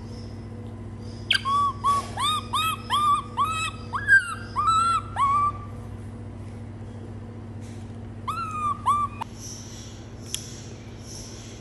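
Baby monkey giving a rapid run of short, high coo calls that rise and fall in pitch, about three a second for four seconds, then three more about eight seconds in.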